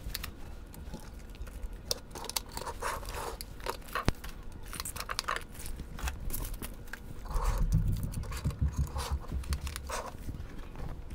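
Handling noise on a wooden tabletop: a plastic zip-lock bag of small model-train parts rustling, with light clicks and knocks of plastic pieces being set down and one sharp click about four seconds in. A low rumbling scrape comes in over the second half.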